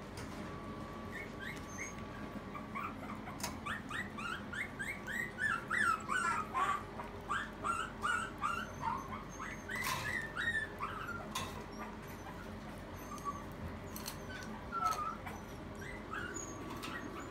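Maltese puppies whimpering: many short, high-pitched falling whines, coming thick and fast in the middle of the stretch and thinning out toward the end, with a few sharp clicks among them.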